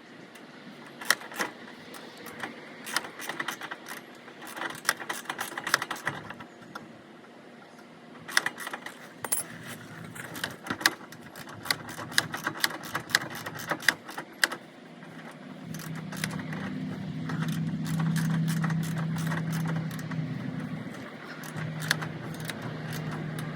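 Metal tools and suspension parts clinking and rattling in quick, irregular clicks while being handled. Later a steady low hum starts and runs for about five seconds.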